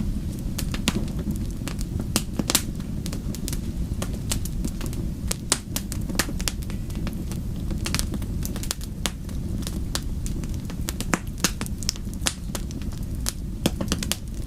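Wood fire crackling and popping in a fireplace: many sharp, irregular snaps over a steady low rumble of the flames.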